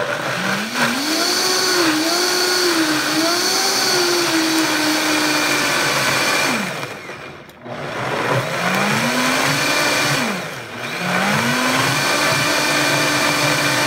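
High-powered countertop blender pureeing sautéed corn kernels into a thick purée. The motor spins up with a rising whine and runs steadily. Twice it winds down and dips briefly, then spins back up.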